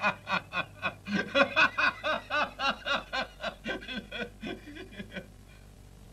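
A person laughing in a long run of rhythmic "ha-ha" pulses, about five a second, with a catch of breath about a second in. The laughter fades and stops about five seconds in.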